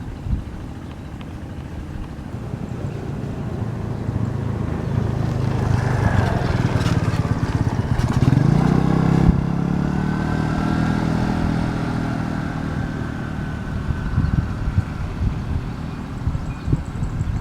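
A motor vehicle driving past: its engine grows louder and rises in pitch, is loudest about nine seconds in, then drops in pitch and fades away.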